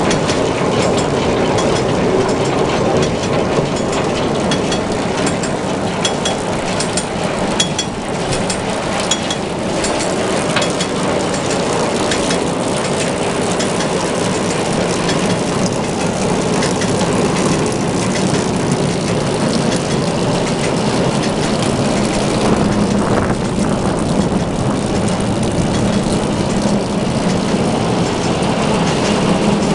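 Brimont 8.4-tonne manure spreader running empty behind a tractor: its rotating beaters and floor chain conveyor clatter with many light metallic clicks over the tractor engine's steady running.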